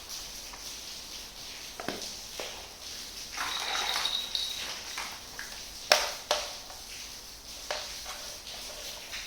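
Small plastic toy kitchen pieces being handled: scattered light clicks and taps, a short rustling scrape with a faint high ring about three and a half seconds in, and the sharpest tap about six seconds in.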